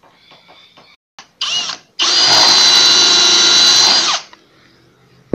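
Cordless drill with a pocket-hole bit boring an angled hole through a pocket-hole jig into 15 mm melamine board. A short blip of the trigger comes first, then about two seconds of steady drilling with a high whine, which stops sharply a little after four seconds in.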